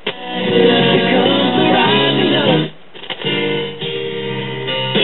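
AM radio broadcast of music with singing and guitar, played by a restored 1965 Magnavox Astro-Sonic solid-state console stereo chassis through test speakers. The chassis has freshly replaced electrolytic capacitors. The music drops out for a moment a little past halfway, then carries on.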